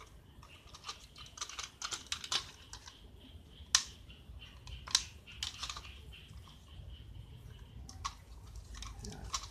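Irregular light clicks and taps of hands handling a thin aluminium soda-can assembly, with two sharper knocks about four and five seconds in.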